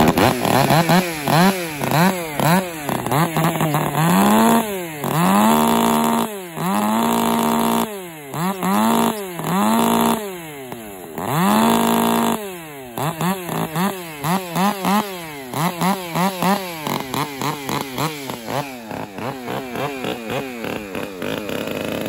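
Two-stroke STIHL chainsaw running after a restart without fast idle, the throttle blipped up and down repeatedly. It is held at high revs for about a second several times, then given a run of quick short blips, and settles into steadier running near the end.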